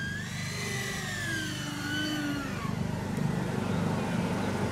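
Twin electric ducted fans of a Freewing Eurofighter RC jet whining, the pitch rising briefly and then falling and fading over the first two and a half seconds as the jet comes in to land. A steady rushing noise carries on after the whine fades.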